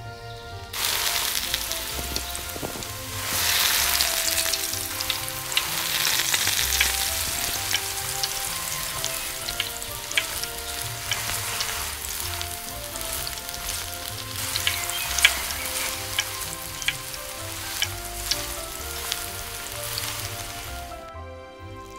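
Food frying in hot oil in a miniature pan: a steady sizzle with many sharp crackles and pops. It starts about a second in and cuts off about a second before the end, over background music.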